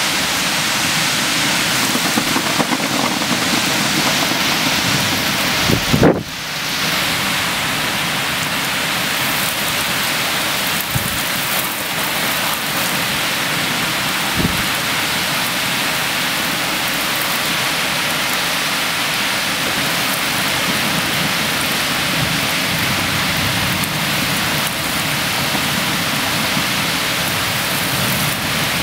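Heavy rain pouring steadily in a severe thunderstorm, with a loud low crack of thunder about six seconds in and a shorter one about halfway through.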